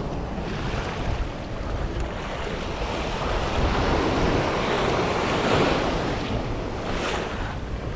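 Ocean surf breaking and washing up the beach, swelling to its loudest about halfway through and then easing off, with wind rumbling on the microphone.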